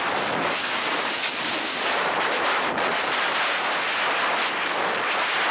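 Steady wind buffeting the microphone, mixed with water rushing past a jet ski running at speed.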